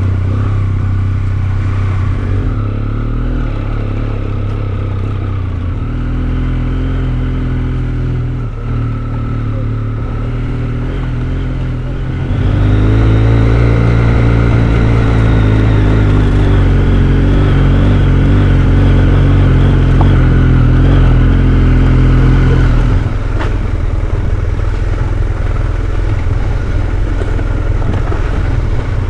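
Motorcycle engine running while riding. About twelve seconds in it grows louder and fuller, and about ten seconds later it drops back.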